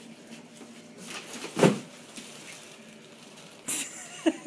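Foil balloon tied to a small dog bumping and rustling against a chair and the wood floor as the dog pushes under the chair, with one loud thump about a second and a half in and a brief crinkle near the end.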